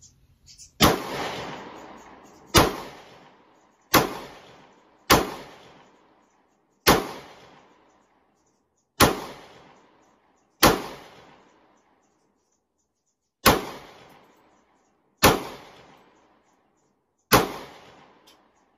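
Smith & Wesson SD40VE .40 S&W pistol fired ten times in slow, irregular succession, one to three seconds between shots. Each sharp report is followed by an echo that dies away over about a second.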